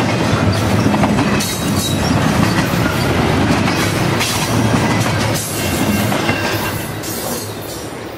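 Freight train's double-stack intermodal well cars rolling past, with steel wheels rumbling and clacking over the rail joints and crossing. The sound fades near the end as the last car goes by.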